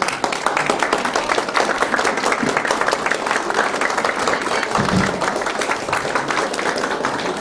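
A small crowd of guests applauding, many hands clapping fast and unevenly without a break.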